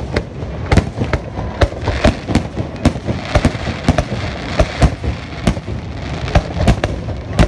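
Aerial fireworks bursting: many sharp bangs in quick, irregular succession over a continuous low din.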